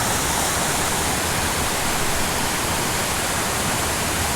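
Steady rush of water pouring over an artificial waterfall at a small dam into the pool below, an even, unbroken roar at a constant level.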